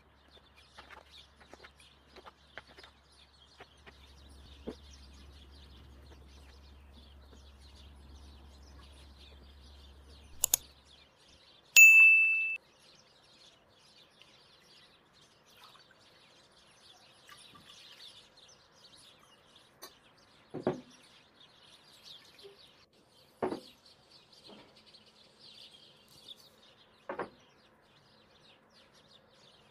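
A single loud, bright ding that rings and dies away within about a second, followed later by three dull knocks of dishware being handled, over faint bird chirping.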